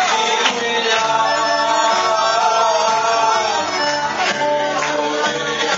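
Live Greek dance music from an electronic keyboard, a melody line that slides between notes over a steady, evenly pulsing bass beat.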